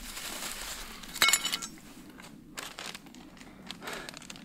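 Crinkling and rustling from a freshly dug-up plant being handled. A sharp burst of loud crackles comes about a second in, followed by a few softer crackles.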